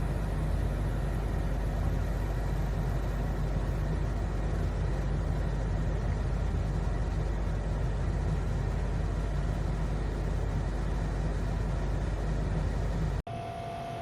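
A COMFEE' dehumidifier running: a steady low hum from its compressor and fan with a rush of air. It cuts off abruptly near the end, giving way to a quieter hum with a steady tone.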